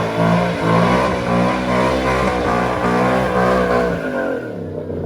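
Truck engine held at high revs, its pitch wavering a little, then dropping off and falling in pitch about four seconds in.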